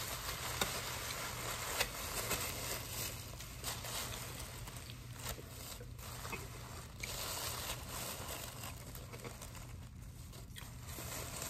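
Paper or plastic packaging being handled: on-and-off crinkling and rustling with a few sharp clicks, over a steady low hum.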